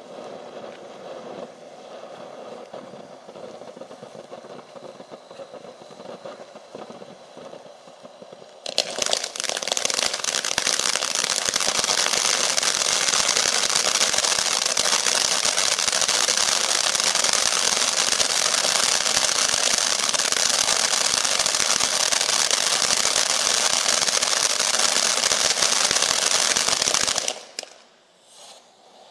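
Ground firework fountain burning: a moderate spitting crackle at first, then about nine seconds in a sudden jump to a loud, dense crackling hiss. This holds steady for about eighteen seconds and cuts off shortly before the end.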